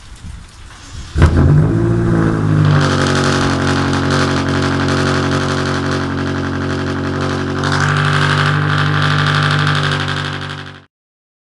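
A motor starts suddenly about a second in, rises briefly in pitch, then runs steadily at one pitch until it cuts off sharply near the end.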